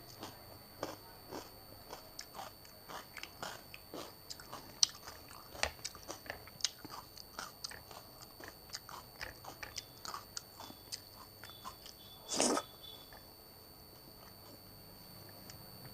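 Close-miked eating: quick, crisp chewing and biting clicks, many a second, with one louder, longer burst about twelve seconds in, after which the chewing mostly stops.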